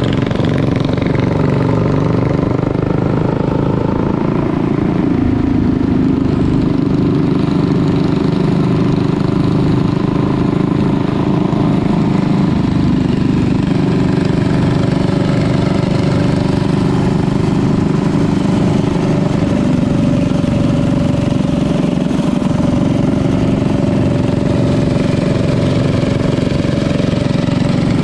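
Predator 212 single-cylinder four-stroke minibike engines running steadily at riding speed.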